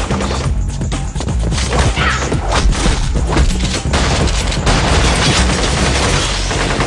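Dense, rapid film gunfire from several guns, with booming impacts and crashing debris, over music with a heavy bass line.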